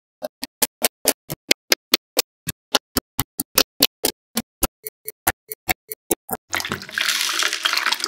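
A rapid run of sharp clicks, about four or five a second, then, about six and a half seconds in, water pouring and splashing from a plastic tub into a small glass fish tank.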